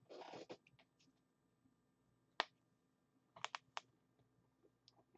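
Near silence broken by a short soft rustle at the start and a handful of faint, sharp clicks: one alone, then three or four close together about three and a half seconds in.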